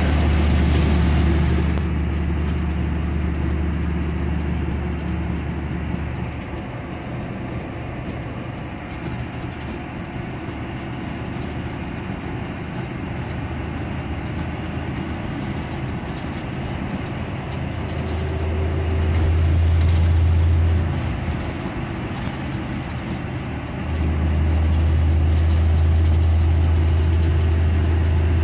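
1949 GMC truck's inline-six engine and drivetrain heard from inside the cab while driving, a steady low drone under road noise. It eases off for a stretch, then grows louder twice, about two-thirds of the way through and again for the last few seconds.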